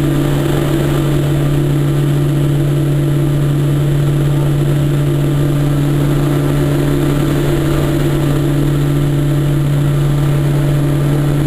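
Steady, loud drone of the Short Skyvan's twin turboprop engines and propellers in flight, heard from inside the cabin with the rear door open, air noise mixed in.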